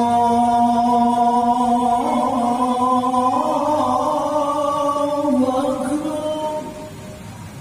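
A muezzin's male voice chanting the adhan (Islamic call to prayer), holding long ornamented notes that step up and down in pitch, the phrase fading out near the end.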